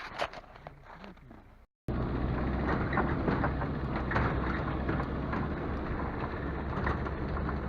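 A few faint short knocks, then, after a cut, a vehicle engine running steadily with a low hum and a rushing noise of travel.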